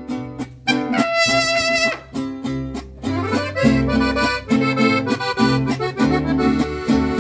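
Small mariachi band playing an instrumental passage. An accordion carries the melody in held notes over strummed vihuela and guitar chords, and the rhythm settles into a steady beat about three seconds in.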